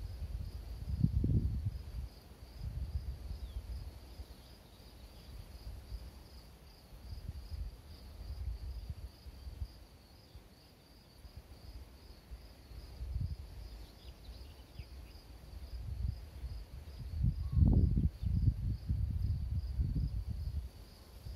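Wind buffeting the microphone in uneven gusts, strongest about a second in and again near the end, over a steady, evenly pulsing high trill of an insect in the grass.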